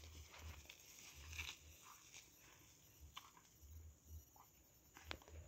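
Very quiet: faint footsteps through wet grass, soft low thumps about every half second, with a few small clicks and rustles.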